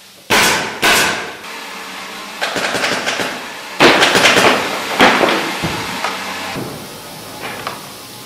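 A series of sharp knocks and metallic clanks, several with a short ringing tail, from steel zigzag sofa springs being handled and hooked into plastic clips on a wooden frame. There are a few hard hits with a quick run of smaller knocks between them, the loudest around four and five seconds in.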